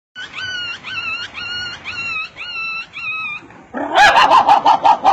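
A dog giving six high whining yelps in a steady series, each sliding up in pitch and then holding, followed near the end by a louder, rapid string of short barks.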